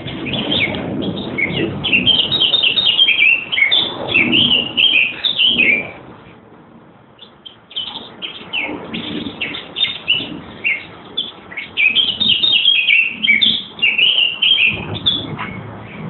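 Songbirds singing in trees, quick chirping and trilling phrases that overlap. The singing comes in two long bouts with a short lull about six seconds in, over a low rumble.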